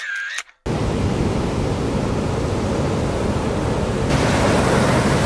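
Atlantic surf breaking and washing up the beach, a steady rush of noise that comes in about half a second in and grows a little louder near the end.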